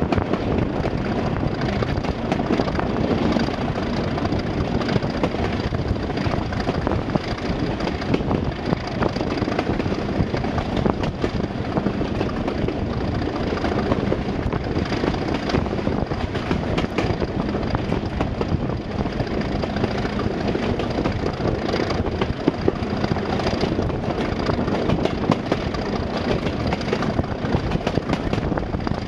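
British Rail diesel locomotive engines running: a loud, steady engine sound at an even level, with a faint constant hum.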